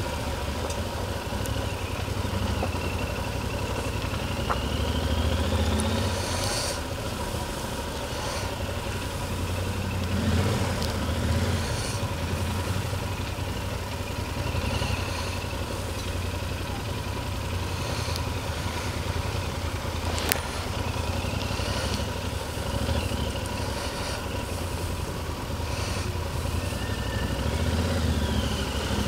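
Motorcycle engine running at low speed, heard from the rider's seat, its low rumble swelling now and then as the throttle opens and closes.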